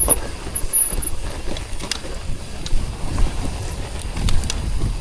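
Mountain bike riding down a rough trail: a continuous uneven rumble of tyres and bike over the ground, mixed with wind buffeting the microphone, and a few sharp clicks and knocks from the bike rattling over bumps.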